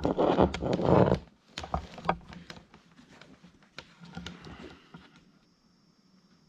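Handling noise: a loud rustle in the first second, then scattered light clicks and taps as an ignition coil and multimeter test leads are handled on a laminate floor, dying away to quiet about five seconds in.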